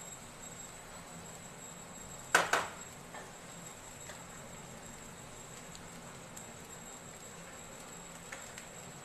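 A spoon knocks sharply once against a non-stick kadai as boiled rice is added, then taps once more faintly about a second later; otherwise only a faint steady hiss.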